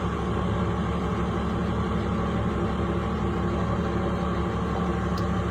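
Excavator's diesel engine running steadily at an even pitch.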